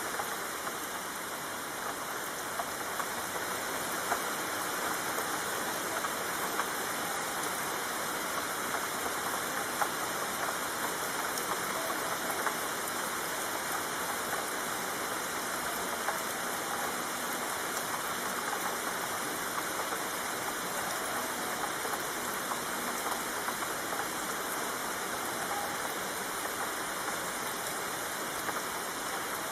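Steady rainfall: an even hiss with scattered drops ticking through it.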